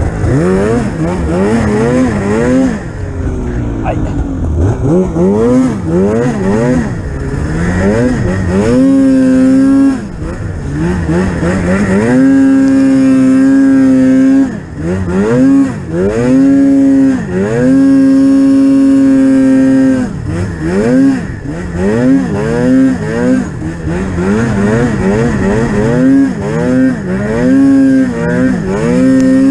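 Polaris Pro-RMK 800 snowmobile's two-stroke engine under throttle. The revs rise and fall again and again, with several spells held steady at high revs lasting a second or two.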